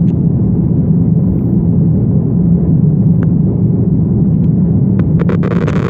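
Steady low rumble of a jet airliner's engines and rushing air, heard inside the passenger cabin during take-off. A few faint clicks and a brief hiss come near the end.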